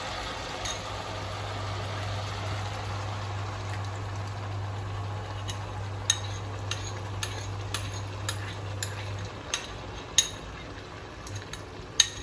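Chicken frying in a pan with the sauce just poured in, its sizzle easing over the first few seconds, over a steady low hum. From about halfway in, a utensil clinks and scrapes against the pan in a run of sharp clicks as stirring starts.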